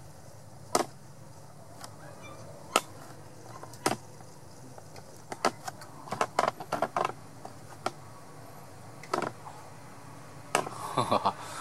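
Scattered sharp clicks and knocks, about a dozen, some in quick clusters, over a faint low hum: handling noise from fingers on a handheld phone while filming.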